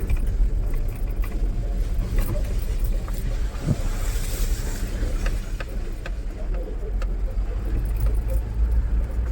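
Mahindra Bolero pickup driving over a rough off-road track: steady engine and drivetrain rumble with scattered knocks and rattles from the body and load bed.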